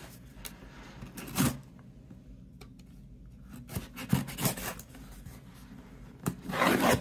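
Folding utility knife slitting packing tape along the seams of a cardboard shipping box: a few short scraping strokes, with a louder rasp near the end.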